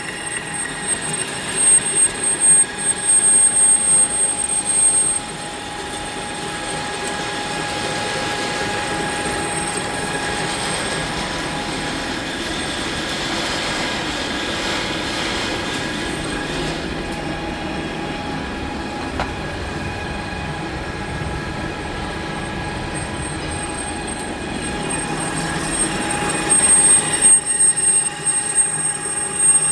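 Metal lathe running while a boring bar cuts the inside of a bore, with a steady whine of several high tones. The cutting sound is uneven for the first few seconds and again near the end, and steady in between.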